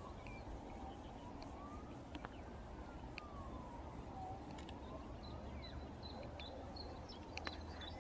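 A faint emergency-vehicle siren wailing, its pitch slowly falling and rising a few times. Short bird chirps sound over a steady low rumble.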